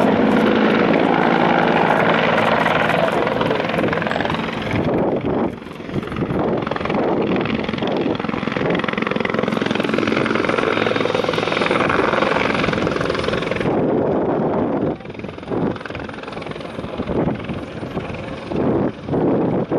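Bell 412 twin-turbine helicopter flying low and hovering, its rotor and turbine noise loud and continuous. There is a brief break about five seconds in, and the level dips and swells unsteadily over the last few seconds.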